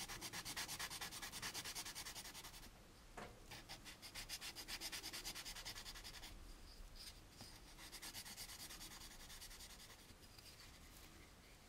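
Sandpaper rubbed in quick back-and-forth strokes across a plastic model-kit part, cross sanding a mold seam flat. The strokes break off briefly about three seconds in and are fainter in the second half.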